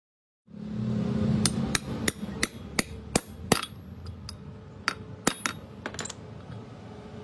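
Hammer striking metal: about seven sharp, ringing taps at roughly three a second, followed by a few lighter, scattered taps.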